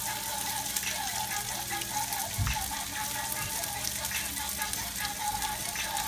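Gorgonzola cream sauce simmering in a pan with a steady sizzle while a silicone whisk stirs through it. A dull thump about two and a half seconds in.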